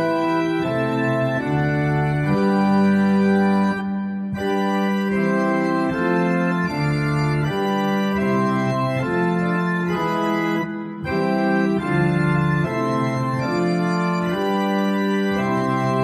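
Organ playing slow, sustained chords in hymn style, with two brief breaks between phrases.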